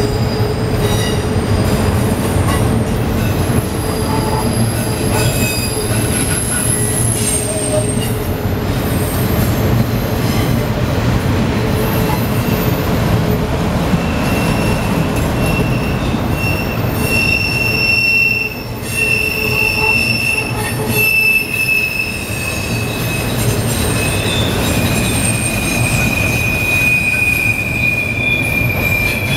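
Freight train of autorack cars rolling past, steel wheels squealing in thin high tones over the steady rumble and clatter of the cars. A strong squeal sets in about halfway through and holds to the end, sliding slightly lower.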